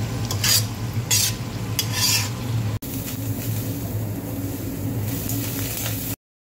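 A spatula stirring and scraping goose tongues through simmering, sizzling sauce in a wok, in a few separate strokes. About three seconds in, this gives way to a steady low hum, which stops abruptly near the end.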